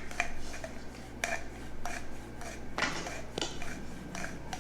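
Irregular light clicks and clinks of hard objects, a few a second, over a low steady hum.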